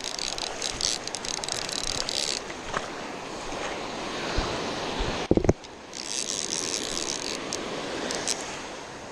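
Baitcasting reel whirring in two spells under the load of a hooked shark, over steady surf and wind on the microphone; a short handling knock comes about five seconds in.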